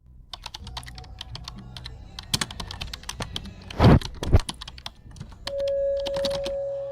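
Rapid clicking like keyboard typing, with two loud thumps about four seconds in. About five and a half seconds in, a steady ringing tone starts and holds.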